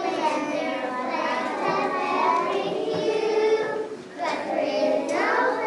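A group of children singing together in unison, with a short break in the singing about four seconds in.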